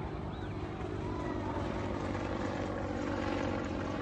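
Steady rumble of a jet airplane climbing away after takeoff, swelling slightly about three seconds in.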